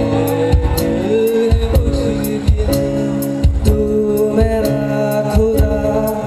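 Live band music: held keyboard chords over a steady beat, with a melody line on top.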